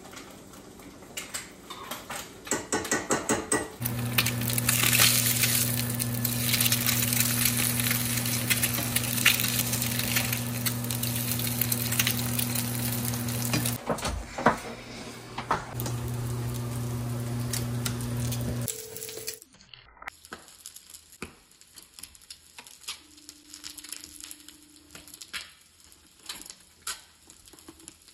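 Kitchen sounds: a few clinks of dishes and utensils, then a loud hiss over a steady low hum for about fifteen seconds, broken off briefly midway. After it stops suddenly there are only scattered light clicks and clatter.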